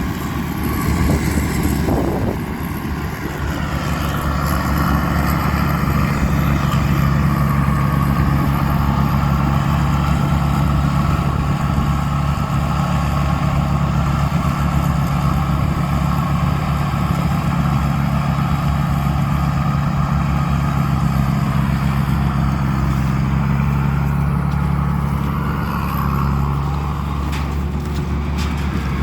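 Isuzu diesel engine of a Tamco rice combine harvester running steadily under working load, a deep, even drone that swells about three to four seconds in and eases off slightly near the end.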